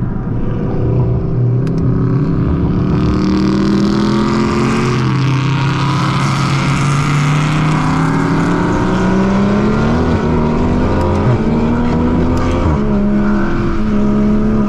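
Toyota GR Supra's engine heard from inside the cabin under hard acceleration on a race track. Its pitch climbs as it pulls and drops back at gear changes about five seconds in and again near the end, over steady road and wind noise.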